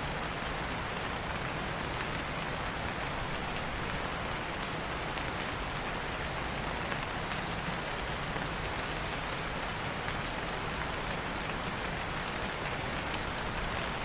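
Steady rain falling, an even hiss of drops with no let-up. A faint high chirping comes through three times.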